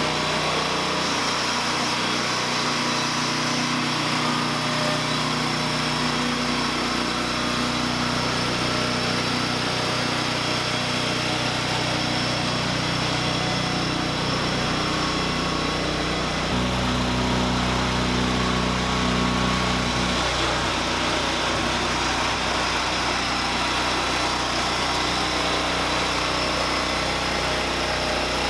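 The 420cc single-cylinder gasoline engine of an MTD 990 lawn tractor converted to a loader backhoe, running steadily. Its note shifts about 16 seconds in and again a few seconds later.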